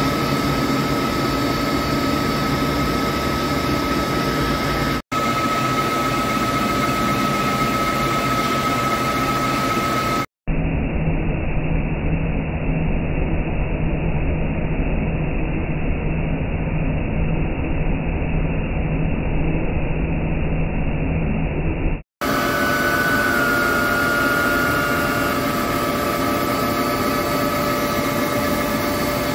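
Hankook PROTEC-9NC CNC lathe turning a stainless steel roll under flood coolant: a steady machine hum with a steady high cutting tone. The sound changes abruptly three times, and the middle stretch sounds duller, without the high tone.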